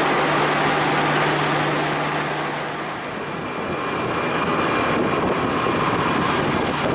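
Station platform noise with a constant low hum from the train beside it. About three seconds in this gives way to the steady run of a motorcycle taxi carrying a pillion rider in traffic.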